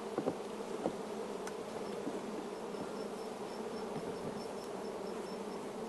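Honeybees of an opened top-bar hive buzzing steadily, with a few light knocks in the first second.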